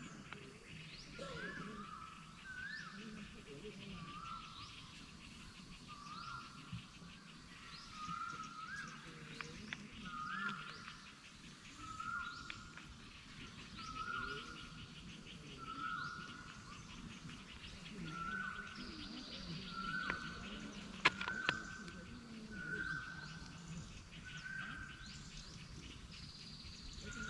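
Forest birds calling: one bird repeats a short note every couple of seconds, and others chirp higher over it. A couple of sharp clicks come about three-quarters of the way through.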